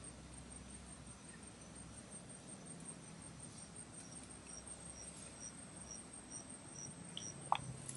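Insects buzzing faintly: a steady high drone, and from about three seconds in a cricket chirping about twice a second. A single short knock near the end.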